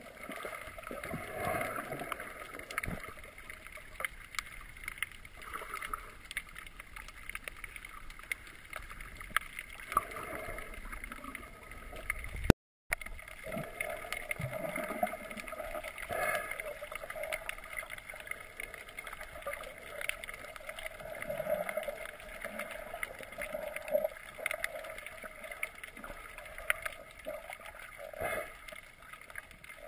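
Muffled underwater sound heard through a GoPro HD Hero 960's waterproof housing: steady watery sloshing and hiss with scattered clicks and crackles. A sharp knock and a brief drop-out come about halfway through.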